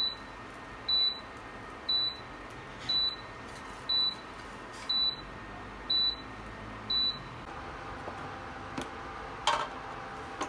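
Induction cooktop beeping, eight short high beeps about once a second while the frying pan is lifted off the hob: its no-pan warning. The beeping stops, and a single knock follows near the end.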